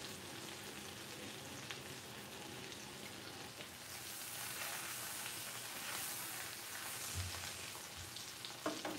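Salmon fillets sizzling and crackling in brown butter in a skillet as they are turned over with metal tongs. The frying grows louder about four seconds in, with a few light clicks and a couple of soft thumps near the end.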